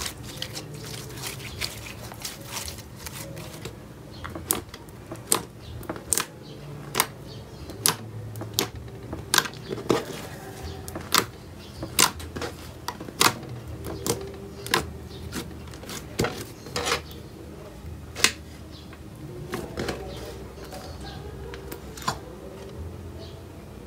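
Freshly activated pink slime being kneaded, stretched and folded by hand, giving sharp irregular clicks and pops of trapped air, about one to two a second, thickest through the middle and thinning near the end.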